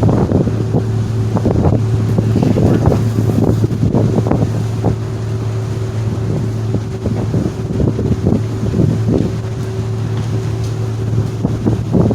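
Wind buffeting the microphone in irregular gusts over the steady low drone of the Staten Island Ferry's engines.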